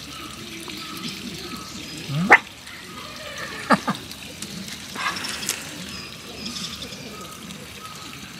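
Small dog barking: one sharp bark about two seconds in, then two quick barks a second and a half later.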